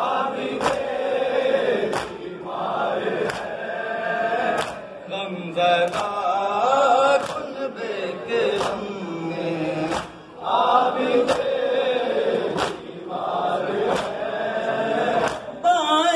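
Male voices chanting a noha, an Urdu mourning lament, over a steady beat of sharp slaps about one and a half times a second: mourners striking their chests in matam in time with the recitation.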